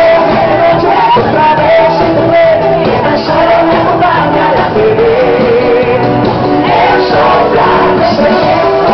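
Loud live band music with a singer, with shouts from a crowd.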